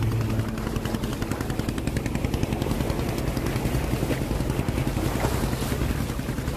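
A small boat's motor running, a fast even rattle of pulses over a low rumble, mixed with water and wind noise.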